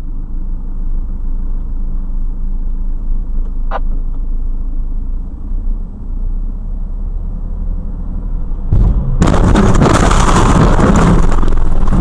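Dashcam car driving in traffic, with a steady low cabin and road rumble and one brief faint tone about four seconds in. About nine seconds in comes a sudden loud crash of a vehicle collision, followed by loud impact noise that goes on for several seconds.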